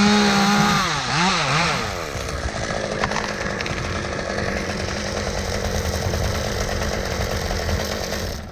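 Chainsaw running at full throttle, its pitch wavering up and down about a second in, then settling to a lower, rougher steady run, as when the chain is cutting into a tulip poplar limb.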